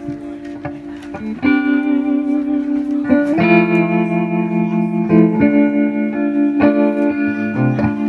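Instrumental guitar music: held, ringing chords that change every second or two.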